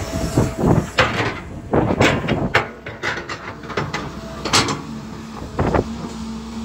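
A Caterpillar tracked excavator working, its engine running under a string of sharp metallic clanks and scrapes as the bucket digs into dry, hard soil. The clanks come thick through the middle, with the loudest one a little past halfway.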